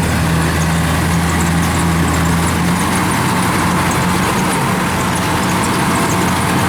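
Diesel engine of a Kubota DC-105X combine harvester running steadily as the machine works in soft, boggy paddy mud where it has sunk after only a few metres.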